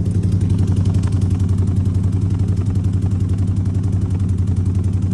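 Chevy C20 pickup engine idling with a steady, pulsing throb, running rough with a misfire that the owner thinks is on one cylinder bank.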